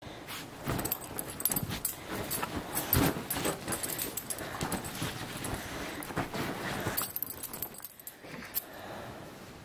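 Labradoodle mother and puppy play-wrestling on a bed: scuffling and rustling with dog noises and many quick clicks and rattles, busiest for the first seven seconds and then quieter.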